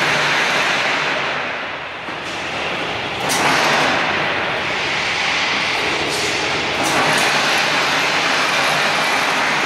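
An automatic rebar sawing and threading line running: a loud, steady machine noise with a low hum underneath, growing louder about three seconds in.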